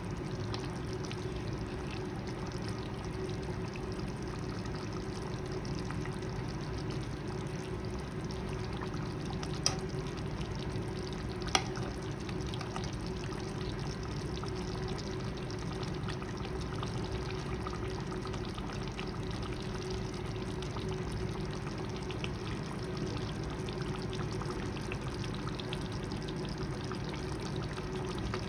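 Chicken curry cooking in a pan on the stove with a steady sizzling hiss, and two sharp clicks about ten and twelve seconds in.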